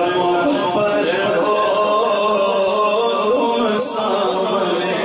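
A man's solo voice singing an Urdu naat (devotional praise poem) into a microphone, in long, ornamented melodic lines with no instrumental backing.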